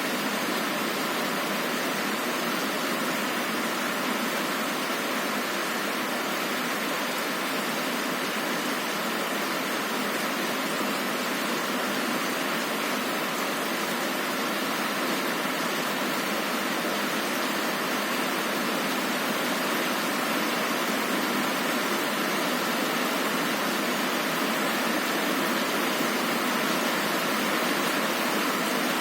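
Heavy rain pouring steadily, an even hiss with no thunder.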